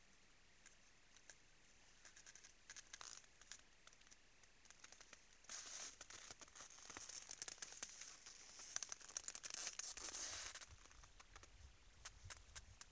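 Moose at a snowy salt lick crunching and scraping close to the microphone. A few faint clicks come first, then several seconds of dense crunching with many small clicks, with a low rumble under it near the end.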